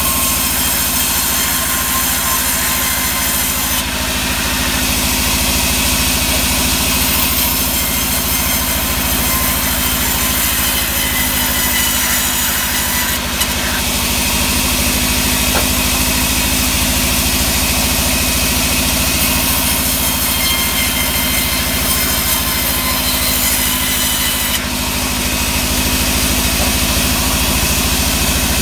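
Band sawmill resawing sengon (Albizia) planks: the band blade cutting through the soft wood over the steady drone of the machine's drive motor. The high cutting noise changes several times as planks enter and leave the blade.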